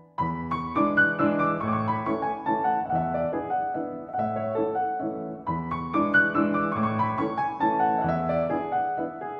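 Background piano music, a steady run of single notes and chords, picking up again after a brief gap right at the start.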